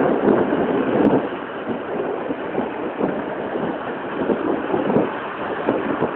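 Heavy rain falling: a steady rushing noise that swells and eases every second or so.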